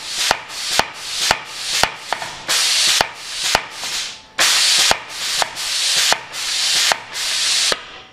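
Homemade pneumatic power hammer, an old hydraulic cylinder run on compressed air through solenoid valves, cycling its ram up and down. Each stroke gives a sharp clack followed by a hiss of air, about two a second at first, then longer, slower hisses.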